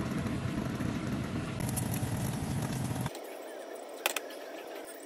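A pot of ginataang monggo simmering, with a dense low rumble and hiss, cuts off suddenly about three seconds in. A quieter hiss follows, with one brief click near four seconds.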